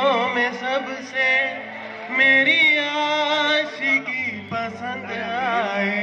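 A male voice sings a Hindi song through a stage microphone and PA, with a wavering, ornamented melody over steady low sustained notes. A louder held phrase comes about two seconds in.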